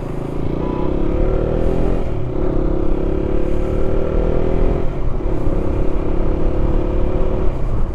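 Motorcycle engine pulling away up through the gears: its pitch rises steadily and drops back at each shift, about two and five seconds in. Heavy wind rumble on the microphone underneath.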